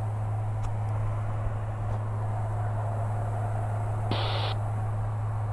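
Steady drone of a Maule light aircraft's piston engine and propeller heard inside the cabin in cruise, a low hum holding one pitch. About four seconds in, a brief hiss cuts in and out for about half a second.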